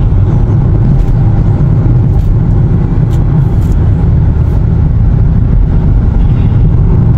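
Steady low rumble of road and engine noise inside a van cruising on a motorway.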